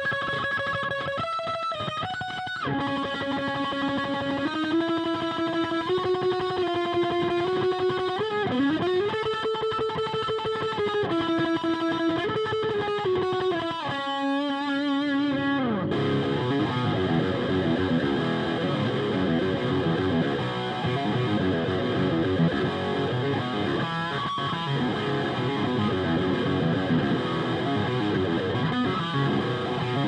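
Carvin DC727 seven-string guitar with Bare Knuckle Black Hawk pickups through a Diezel VH4 tube amp's high-gain channel 3, close-miked with an SM57, with no pedals or noise gate. For about the first half it plays sustained distorted lead notes with vibrato and a bend upward; about halfway a held note slides down into fast low riffing that runs on to the end.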